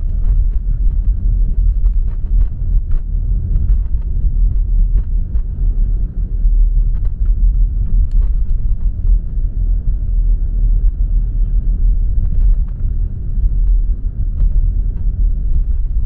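Car cabin noise while driving: a steady low rumble of tyres on the road and the engine, heard from inside the car, with a few faint clicks.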